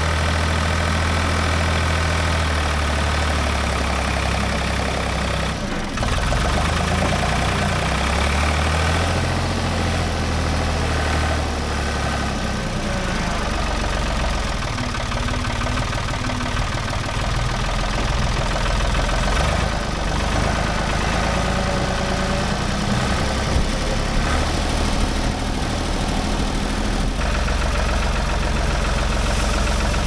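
Ford 555 backhoe loader's engine running while the loader carries a bucket of dirt, its note changing with throttle and load several times, with a few short knocks of the machine working.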